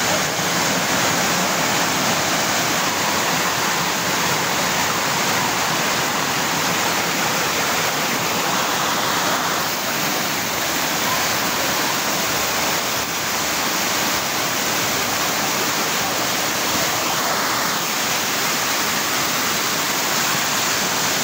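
Small spring-fed stream rushing and splashing down rock cascades: a steady, unbroken water rush.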